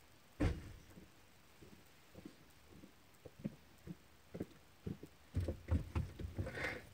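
Scattered light knocks and rustles inside a car cabin: one sharper knock about half a second in, then irregular small taps that come thicker and louder about five seconds in.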